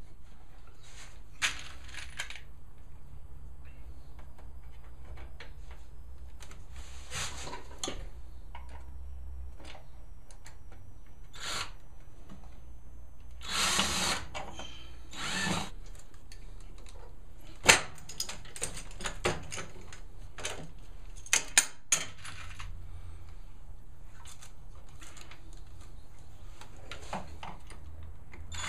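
Cordless drill/driver running in short bursts as it drives pocket screws into a wooden frame joint. Between the bursts come sharp clicks and knocks from handling the screws, clamp and wood, the loudest about two-thirds of the way in.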